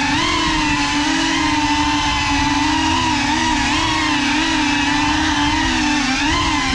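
GEPRC CineLog 35 cinewhoop's four brushless motors and ducted propellers whining, the pitch wavering up and down with throttle as it flies, with a deeper dip and climb about six seconds in. Heard up close from the camera mounted on the drone.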